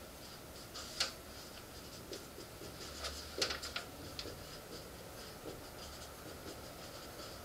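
Dry-erase marker writing on a whiteboard: short squeaky strokes and taps as the letters are drawn, with a sharp click about a second in and a cluster of strokes around the middle.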